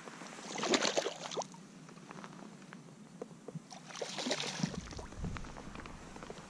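Water splashing against the side of a kayak in two short bursts, about three seconds apart, with small clicks and knocks in between.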